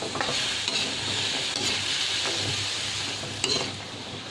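Diced carrots and chayote sizzling in oil in a steel wok while a metal spatula stirs and tosses them, with a few sharp scrapes and clicks of the spatula against the pan, the loudest a little after three seconds in.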